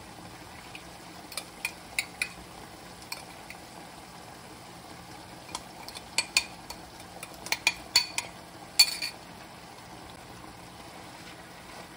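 Chicken adobo sauce simmering uncovered in a pan, a steady low bubbling as the vinegar cooks off. Over it come scattered sharp ticks and taps as brown sugar is tipped in from a small glass bowl, most of them toward the middle and later part, with one short scrape near the end.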